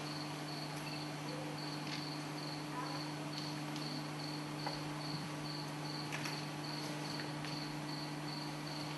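Cricket chirping in a steady, even pulse of short high chirps, about two and a half a second, over a low steady electrical hum, with a few faint knocks.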